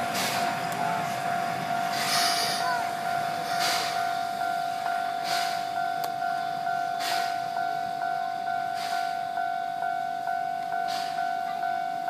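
C12 steam tank locomotive chuffing slowly as it pulls away, one exhaust beat about every one and a half to two seconds, growing fainter. Under it a level-crossing alarm rings on steadily, a constant tone pulsing about twice a second.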